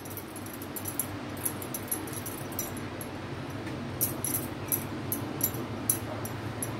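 Soft, irregular little pats and sticky smacks of oiled hands pressing a ball of adhirasam dough flat on the palm, over a steady low hum.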